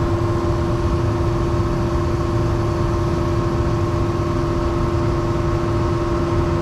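Gas furnace running with its blower fan on full speed: a steady motor hum with a constant mid-pitched whine and a low rumble, unchanging throughout. The furnace is running hot, close to the point where its overheating limit switch opens.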